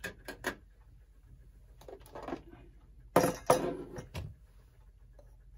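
Small hard objects clinking and tapping on a workbench as a tiny clock pin and parts are handled and set down: a few light taps at the start, then a louder clatter of several strikes about three seconds in.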